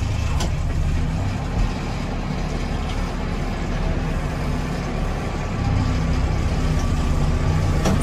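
Case 580 Super M backhoe's diesel engine running steadily as the machine drives along, heard from inside the cab; it grows a little louder about five and a half seconds in.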